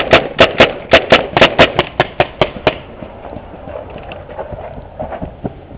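Paintball marker firing a rapid string of shots, about five a second, that stops a little under three seconds in; a few fainter pops follow.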